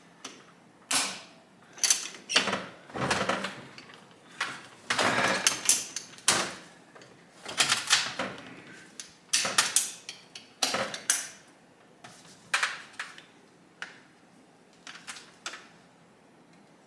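Irregular metallic clicks and clunks with a few short scrapes, from the 1971 Honda SL125 engine's gear shifter and transmission being worked through the gears by hand.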